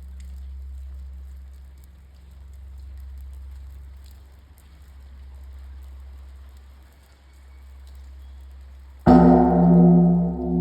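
Koyasan's great temple bell, the Koya Shiro, a Japanese bonshō. Its low hum swells and fades in slow waves, then about nine seconds in it is struck again with the wooden beam and rings out loud, its tones pulsing as they decay.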